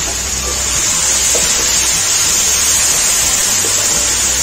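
Chicken and onion-tomato masala sizzling with a steady hiss in hot oil in a wok, with water just poured in turning to steam. A wooden spoon begins stirring near the end.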